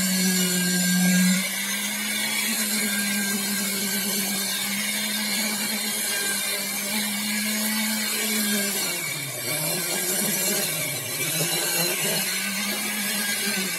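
Electric concrete needle vibrator running with a steady motor whine, its pitch dipping and recovering a few times in the second half. It is compacting freshly poured concrete in a footing.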